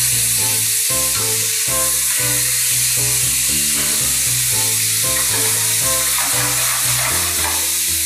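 Chicken breast fillets sizzling steadily as they fry in oil in a frying pan, with background music playing a run of notes underneath.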